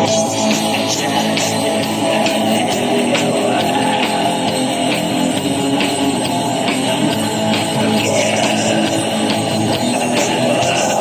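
Live rock band playing: electric guitars over a drum kit, with repeated drum and cymbal hits.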